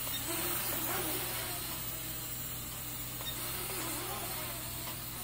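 Syma X11 mini quadcopter's geared motors and propellers buzzing steadily, the pitch rising and falling as it is flown through flips.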